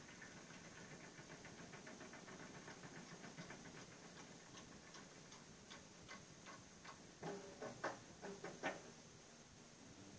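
Faint marching band percussion: an even run of light ticking clicks, then a few louder struck, pitched notes near the end.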